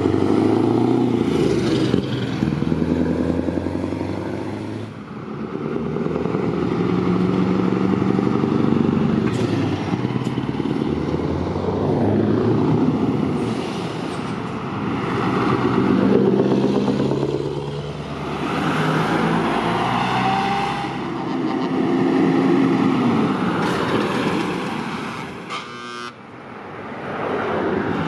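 A line of heavy diesel trucks, Scania and DAF tractor units with trailers, driving past one after another. Each engine rises in pitch and loudness, then fades as it goes by. Near the end there is a short rattle of clicks.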